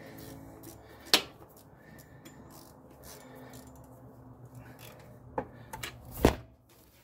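Metal hand tools clicking and clinking against the engine as a ratchet and socket are worked on the alternator bolts, with a sharp metallic clack about a second in. Near the end a louder clunk as something is dropped in the engine bay.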